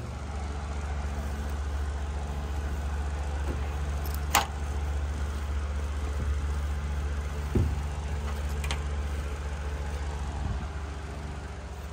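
A steady low hum, with two light knocks about four and seven and a half seconds in, as hands feel through bedding inside the open drum of a Maytag Bravos top-load dryer to check whether it is dry.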